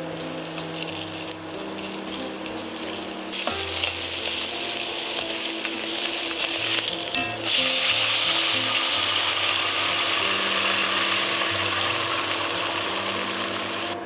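Bacon strips sizzling as they fry in a hot pot, growing louder about three and a half seconds in. About halfway through, water poured into the pot hits the hot surface with a loud hiss that slowly dies down.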